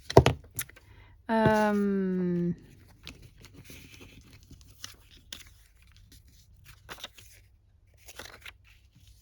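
Scrap paper being handled for collage: short tearing and rustling sounds with light ticks and taps on the work surface, opening with a sharp click. About a second in, one held hummed note, falling slightly, lasts just over a second.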